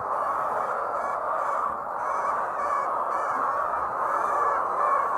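Many laying hens calling together, a steady dense din of clucking with short higher squawks rising above it now and then.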